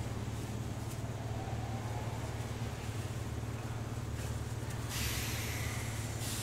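Electric commuter train standing at a station platform, giving a steady low hum. About five seconds in there is a loud burst of compressed-air hiss from the train, lasting just over a second.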